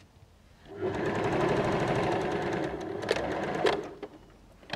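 Electric domestic sewing machine stitching a seam, starting about a second in and running steadily with a fast even stitch rhythm for about three seconds, then stopping with a few sharp clicks.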